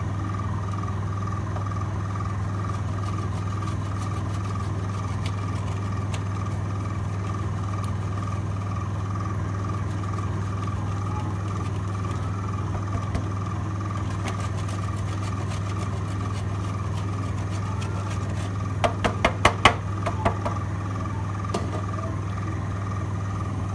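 A steady low mechanical hum throughout, with a quick run of about six sharp clattering taps roughly three-quarters of the way through.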